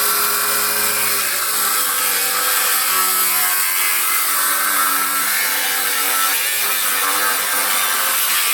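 Milwaukee M18 Fuel 3670-20 6-inch cordless grinder with a cut-off disc grinding steadily through a thick cast-iron car brake rotor. A harsh hiss of the cut runs under the motor's whine, and the whine shifts in pitch a couple of times as the load on the disc changes.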